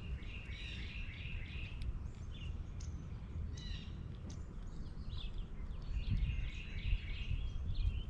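Small birds chirping and singing, with a busy bout of calls near the start and another near the end and scattered single chirps in between, over a steady low outdoor rumble.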